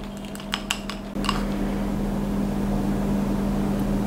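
Chopsticks clicking against a ceramic bowl while stirring natto, a few quick taps about half a second in. Under it a steady machine hum that gets clearly louder about a second in and stays on.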